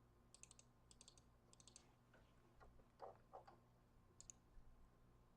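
Faint clicks of a computer mouse and keyboard, coming in short quick clusters of several clicks each, against near silence.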